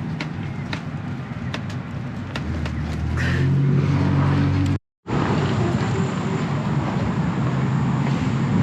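Car engine running, rising in pitch and getting louder as it speeds up about three seconds in, then cut off by a brief dead silence before steady running resumes.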